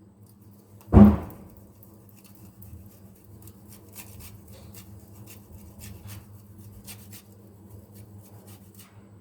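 A single loud knock of kitchenware with a brief ring about a second in, followed by faint scattered clicks over a low steady hum.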